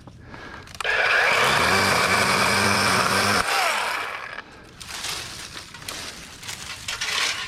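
A Dewalt 20V XR 12-inch battery chainsaw runs up and cuts into a branch for about two and a half seconds, then winds down. Quieter scraping and rustling follow near the end.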